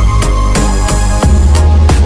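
Loud electronic background music with regular drum hits and a heavy bass line that swells about a second in.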